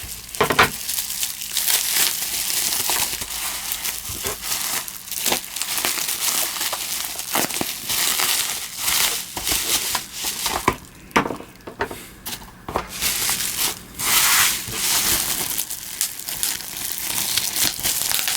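Packaging crinkling, rustling and tearing as a parcel is unwrapped by hand, with many sharp crackles and a few short pauses.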